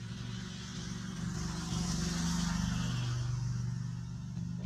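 A road vehicle passing by: engine and tyre noise swells, is loudest two to three seconds in, then fades, over a steady low hum.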